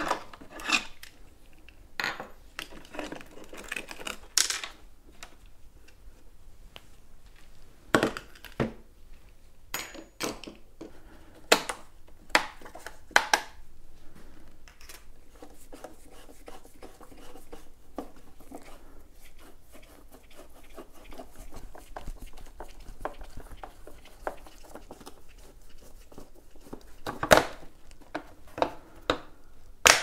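An electric unicycle's hard plastic shell being worked on with a screwdriver: irregular clicks, taps and knocks of plastic parts and tools, with quieter rubbing and scraping in between. The loudest knock comes near the end.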